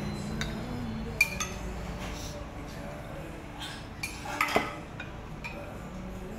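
Ceramic dishes and cutlery clinking on a table as a soup bowl is lifted and set down: a few sharp clinks, the sharpest about a second in and a small cluster about four and a half seconds in, over a steady low hum.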